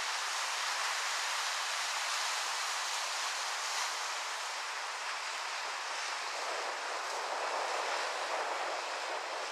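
Surf breaking and washing on the shore: a steady rushing that swells a little near the end.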